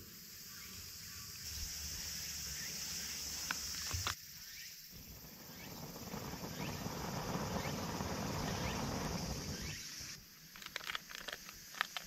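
Long breaths blown onto smouldering wood shavings to bring them to flame, then the snapping and popping of a wood fire burning in a metal fire stand near the end. A steady hiss runs for a couple of seconds before the blowing.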